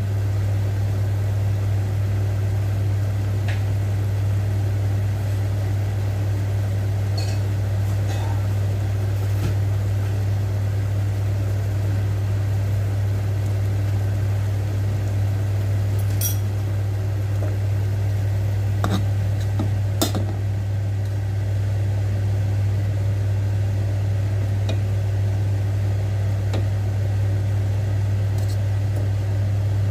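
Steady low hum, with a pot of water boiling on a gas stove underneath it; the bubbling gives scattered soft pops and a few sharper ticks.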